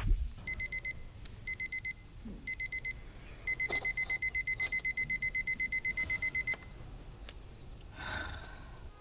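Digital alarm clock going off: three short bursts of rapid high beeps about a second apart, then an unbroken run of rapid beeps for about three seconds that cuts off suddenly.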